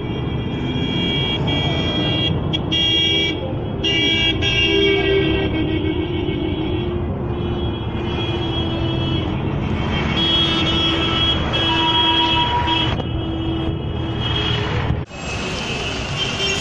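Busy bus-stand traffic: bus and auto-rickshaw engines running, with horns honking again and again in overlapping stretches. The sound cuts out for an instant about fifteen seconds in.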